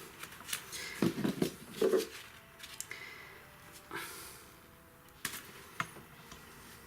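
Handling noise from working with wire and hand tools: irregular rustling and scraping, then scattered small clicks, with two sharp clicks a little past the five-second mark.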